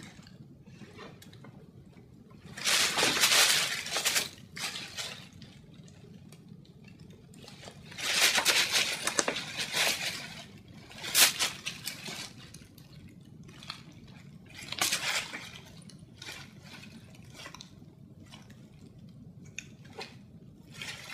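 Wrapping paper and metallic foil crinkling and rustling as they are shifted about, in several separate bursts, the longest lasting about two seconds.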